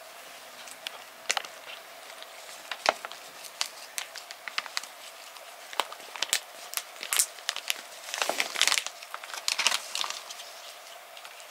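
A cat eating dried bonito flakes (katsuobushi) from a glass bowl: irregular small clicks and crackles of licking and chewing the flakes, busiest about eight to ten seconds in.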